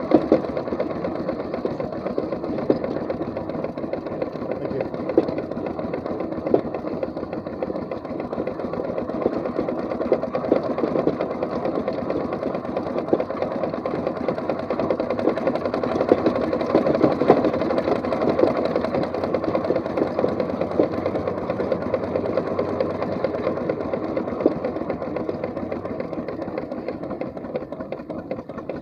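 4-inch scale McLaren steam traction engine running on the move: a fast, steady mechanical clatter from its motion and gearing, with a few sharper knocks.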